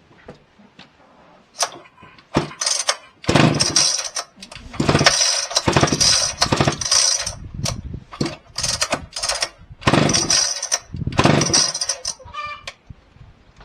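Husqvarna 2100 two-stroke chainsaw firing in a string of short, irregular bursts, catching briefly and dropping away again over and over rather than running steadily.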